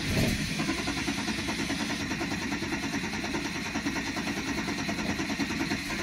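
1991 Mercedes-Benz 190E engine running at a steady idle just after its first start on new fuel injectors, with the fuel system not yet fully bled.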